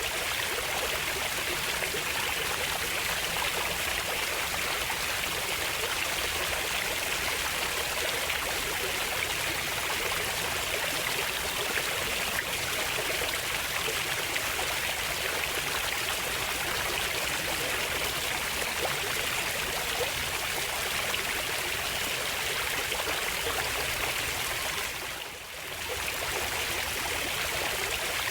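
Water running in a stream, a steady rushing and trickling with no pauses. The sound dips briefly near the end and comes straight back.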